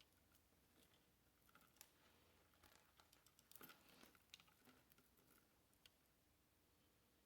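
Near silence with scattered faint small clicks and ticks, clustered in the middle, of a jewelry chain and pearls being handled and worked loose from a tangle.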